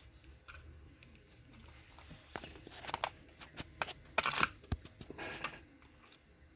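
Hands working on a laptop's internals: a series of light clicks and taps from parts and screws being handled, with two brief scraping rustles in the middle, the louder about four seconds in.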